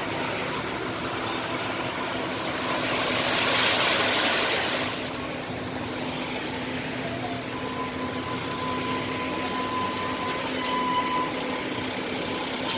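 Excavator's diesel engine running steadily with a low hum, with a swell of hissing noise in the middle and a thin steady whine coming in during the second half.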